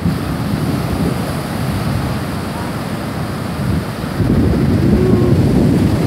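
Rough surf breaking and washing up the beach, with wind buffeting the microphone; the wash grows louder about four seconds in.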